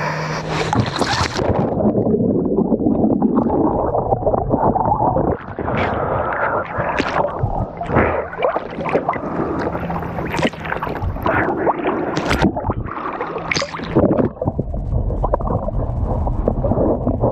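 Lake water splashing and gurgling around a swimmer getting off a paddleboard to snorkel, with many short sharp splashes. About three-quarters of the way through it turns to a duller low rumble as the sound goes under the surface.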